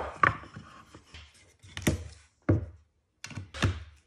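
Wooden pieces knocking and being set down on a wooden workbench as a push-block jig is handled. The knocks are sharp and separate, about six in four seconds, each with a short ringing tail.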